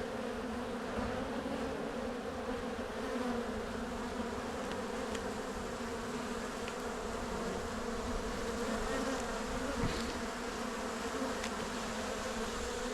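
Honey bees humming steadily around an open hive, a dense buzz of many bees with a few faint ticks.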